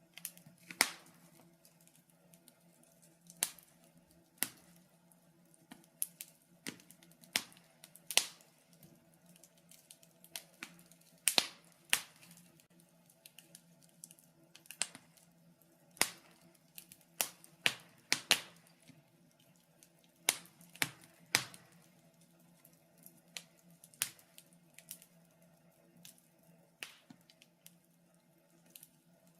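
Wood fire crackling, with irregular sharp pops and snaps, some much louder than others, over a faint steady low hum.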